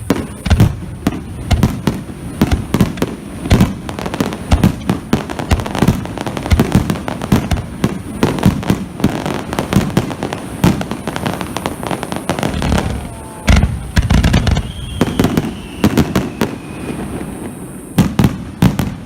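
Fireworks display: aerial shell bursts and crackling reports going off in rapid succession, several booms a second, without a pause.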